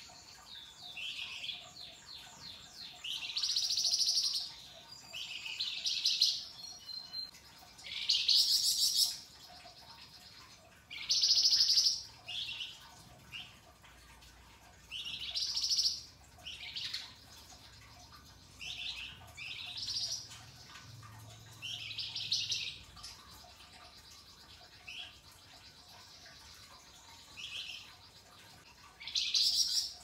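Caged flamboyan songbird singing in short, loud bursts of rapid high notes, about a dozen phrases spaced a second or two apart.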